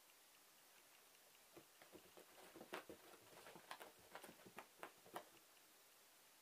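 Faint, irregular patter of a cat's paws and claws scrabbling and tapping on a rug as it pounces, starting about a second and a half in and stopping a little after five seconds.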